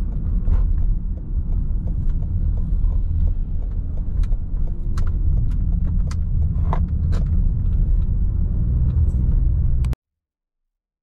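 Car driving on a city road: a steady low rumble of road and engine noise, with scattered sharp clicks and knocks. It cuts off abruptly to silence near the end.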